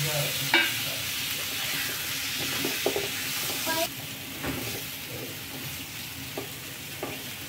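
Pumpkin cubes sizzling in hot oil in a non-stick frying pan, stirred with a silicone spatula that knocks and scrapes against the pan now and then. The sizzle drops noticeably about four seconds in.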